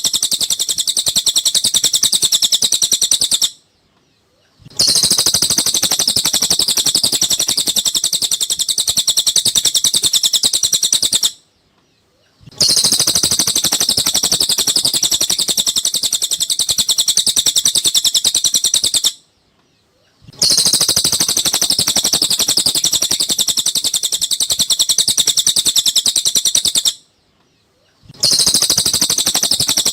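Cililin songbird singing a fast, continuous high-pitched chattering song, played as a looped recording. Stretches of about seven seconds of song are broken by brief silent gaps of about a second, four times.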